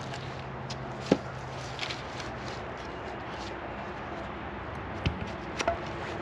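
A few sharp knocks of wood being struck: one loud knock about a second in, then three more in quick succession near the end.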